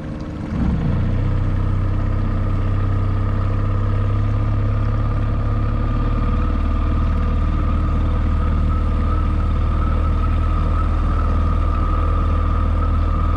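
Skiff's motor speeding up about a second in, then running steadily as the boat moves along, its pitch dropping slightly about halfway through.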